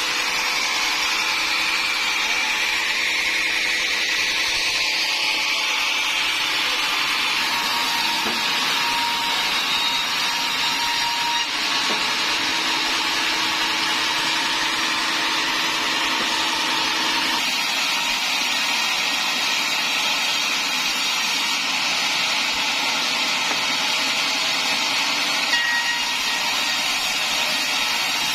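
Sawmill saw cutting through timber: a steady, continuous machine noise with faint whining tones that come and go.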